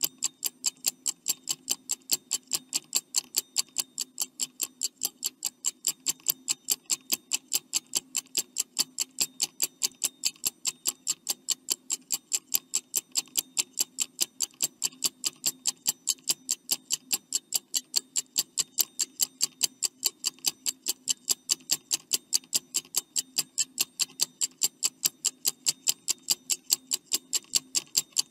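Stopwatch ticking sound effect for a countdown timer: rapid, even ticks, several a second, running steadily.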